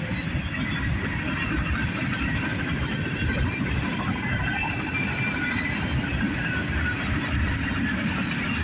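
Freight cars of a manifest train rolling past: a steady rumble of steel wheels on the rails.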